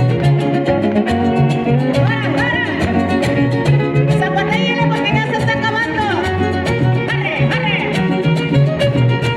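Son huasteco played by a trio: a violin carries a melody with slides and ornaments over a fast, even strummed rhythm and bass. Dense, rapid percussive strikes run through it, the zapateado of dancers' shoes.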